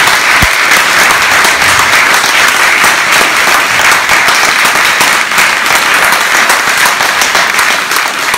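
A full-house audience applauding steadily, a dense wash of many hands clapping.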